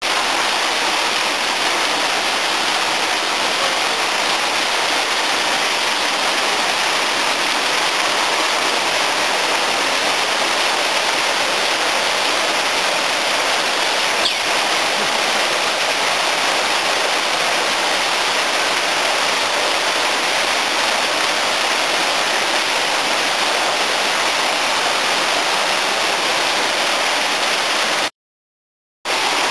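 Steady rushing of running water, with a brief cut to silence near the end.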